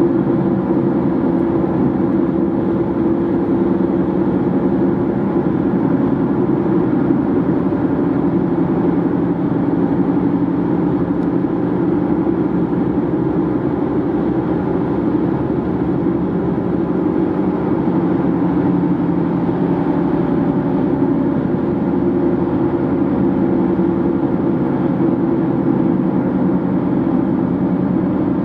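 Steady road noise of a car driving at highway speed: tyres on pavement and engine running evenly, with a faint steady hum.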